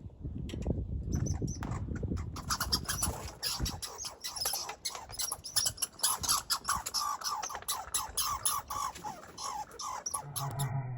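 Pileated woodpecker calling: a long, rapid series of short repeated notes, starting about two seconds in, lasting several seconds and falling slightly in pitch toward the end. A low rumble runs under the first few seconds.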